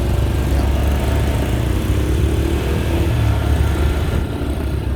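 Motorcycle engine running as the bike rides off, a steady low rumble.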